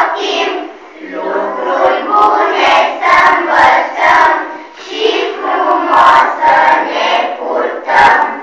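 A group of young schoolchildren singing loudly together in unison, in short rhythmic phrases, with a few low thumps beneath the voices.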